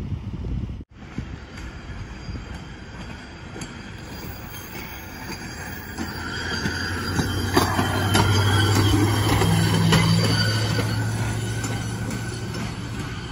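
Hi-rail pickup truck driving along the railroad track, getting louder as it passes close by and fading as it moves away, with a steady low hum and a few clicks of its wheels over the rail joints.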